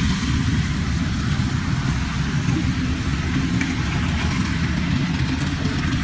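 Steady low rumble of a corn combine harvester running as it works through the field.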